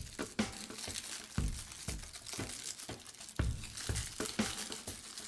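White paper wrapping crinkling and rustling in the hands as a small statue part is unwrapped, in irregular handling bursts.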